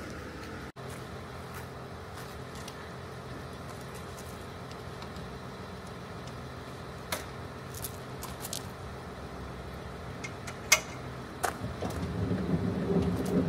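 A pickup truck's engine idling steadily, with a few sharp metallic clicks and jingles from the tow hitch as the trailer is coupled up, louder handling clatter near the end.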